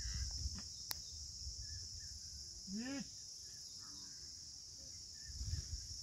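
Steady high chirring of crickets over low rumbling field noise. Just before halfway there is one short, arched call, the ploughman calling out to his bullocks. About a second in there is a single sharp click.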